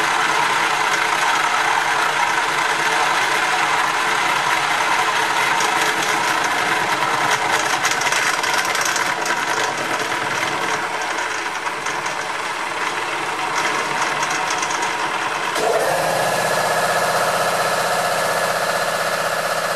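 Hare and Forbes HM48 milling machine running an end mill at 540 RPM through metal on a 1 mm deep cut, a steady rough cutting chatter. About 16 seconds in, an air compressor starts and runs with a steady hum alongside.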